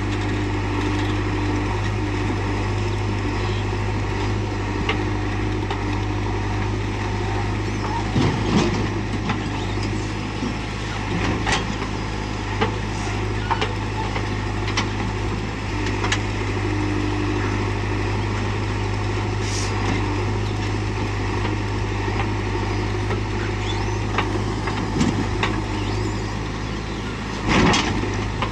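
Heavy diesel engine running steadily with a low, even hum. Several sharp knocks are heard, with a louder thump near the end.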